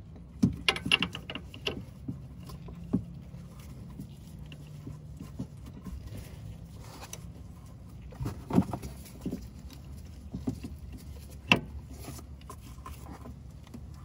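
Wrench clicking and knocking on the 18 mm nut of a car's stabilizer link while trying to loosen it: a quick run of metallic clicks at first, then single sharp knocks spaced a few seconds apart, the loudest near the end.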